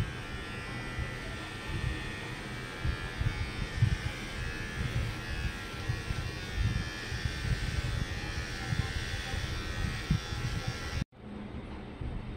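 Cordless electric hair trimmer buzzing steadily as it cuts short hair on a scalp, with irregular low thumps underneath. The buzz stops abruptly near the end.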